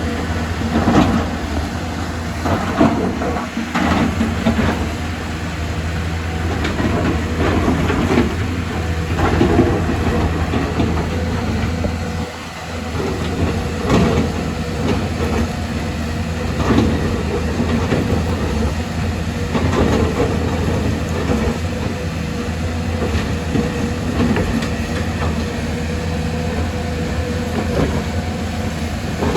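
Excavator's diesel engine running steadily under load, with irregular metallic clanks and knocks from the machine working.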